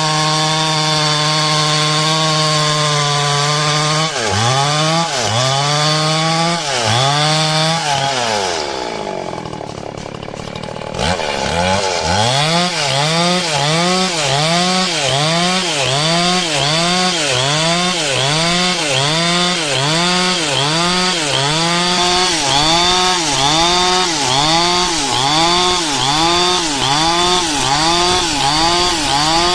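Stihl chainsaw cutting lengthwise through a coconut-palm log. The engine runs steady at high speed, drops briefly in speed about a third of the way in, then bogs down and picks up again in a regular rhythm a little faster than once a second as the chain bites into the wood.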